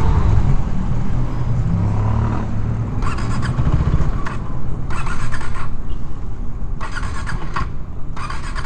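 KTM RC390 motorcycle on the move, its single-cylinder engine running under a heavy rumble of wind on the microphone. Four short, brighter bursts of higher-pitched sound stand out, about three, five, seven and eight and a half seconds in.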